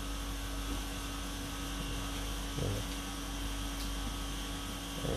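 Steady background hum with one faint short sound about two and a half seconds in.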